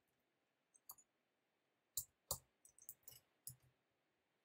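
Faint, irregular clicks of computer keyboard keys being typed: a single key about a second in, then a quick run of about seven keystrokes over the next second and a half.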